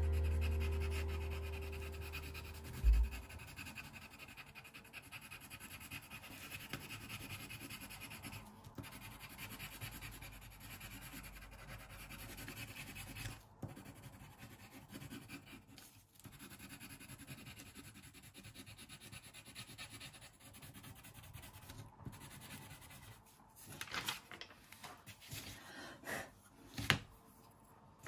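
Faint scratching and rubbing of a fine pen tip as it draws on a door hanger blank. A few clicks and knocks of marker pens being handled come near the end.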